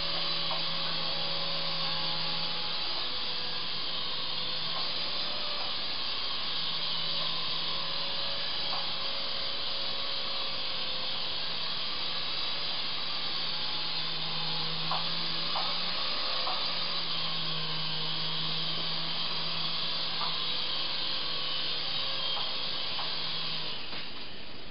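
Syma S109 mini R/C helicopter's small electric motors and rotors whirring and humming in flight, the pitch shifting slightly as the throttle changes, then stopping shortly before the end.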